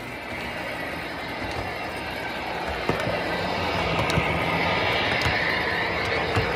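MTH model Amtrak Turbo Train running on model track and passing close by, its wheels and motors rumbling louder as it approaches. There are occasional sharp clicks, and a whine grows louder in the second half.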